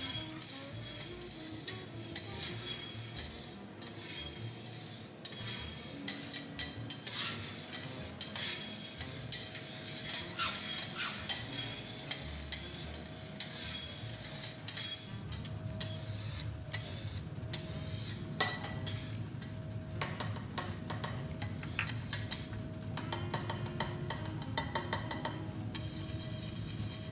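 Metal teppanyaki spatulas scraping, rubbing and clicking against the steel griddle as the chef turns fried garlic chips and works minced garlic in oil, with a run of quick taps near the end.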